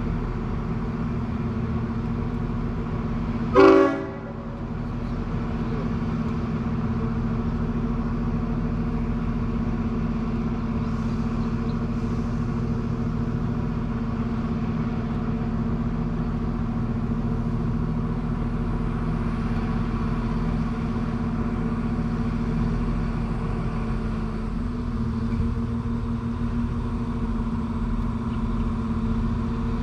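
Queensland Rail diesel tilt train's engine running with a steady drone while the train stands or crawls. A single short horn toot about three and a half seconds in is the loudest sound.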